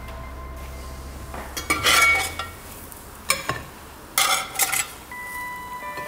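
Metal slotted spatula scraping across a cast-iron skillet as it slides under slices of toasted bread and lifts them out. There are three short bursts of scraping and clinking, about two, three and a half, and four and a half seconds in.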